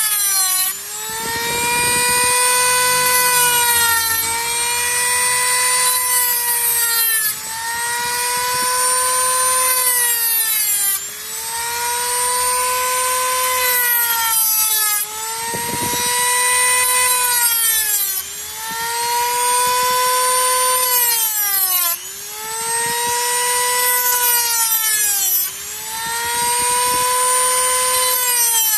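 Handheld rotary tool with a cut-off disc cutting through a metal ring: a high-pitched whine whose pitch sags and recovers about every three to four seconds as the spinning disc is pressed into the ring and eased off.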